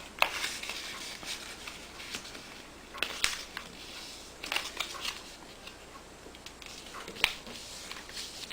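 A sheet of copy paper being folded and creased by hand: soft rustling with a few sharp crackles as the paper bends and is pressed flat.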